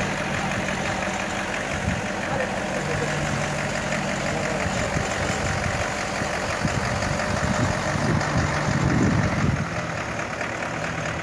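Crane's heavy engine running steadily while it lowers a large water pipe on slings. It grows louder for a couple of seconds about eight seconds in, then eases back.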